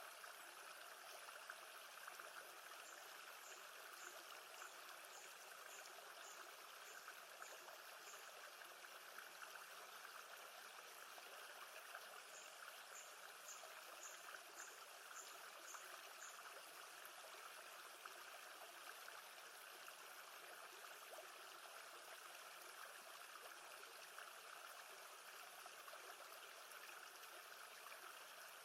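Faint, steady wash of lake water. Twice, a run of thin high chirps repeats about twice a second for a few seconds.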